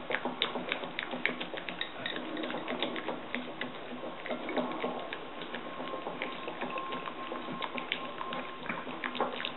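Wire whisk beating egg yolks in a ceramic bowl while olive oil is drizzled in to emulsify them, a quick irregular clicking and scraping of the whisk against the bowl.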